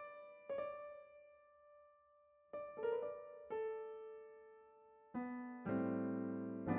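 Slow solo piano background music: single notes struck and left to ring and fade, then fuller chords from about five seconds in.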